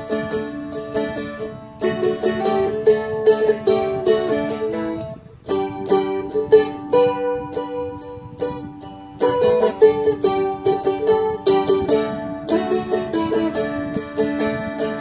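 Seagull Merlin M4 strumstick strummed and picked, an improvised melody played over D, A and G chords with a steady drone under it. The chord changes a few times, with a brief gap about five seconds in.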